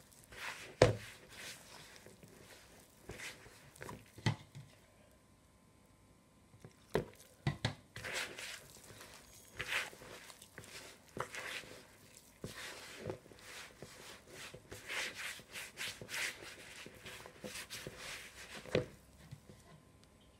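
A hand mixing and kneading soft yeast dough in a plastic bowl: irregular squishing, pressing and scraping, with occasional sharper knocks. There is a brief lull about five seconds in.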